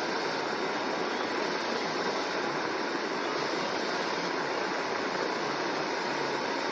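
Steady hiss of radio static, with no voice or alert tones.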